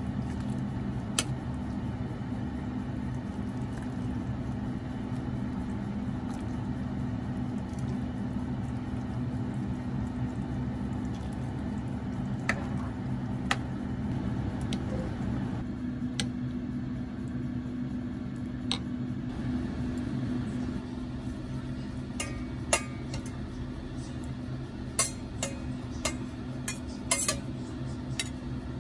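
A pot of soup being stirred with a plastic ladle, with a few light knocks against the pot, over a steady low hum. Near the end comes a quick run of sharper clinks of dishes and metal cookware.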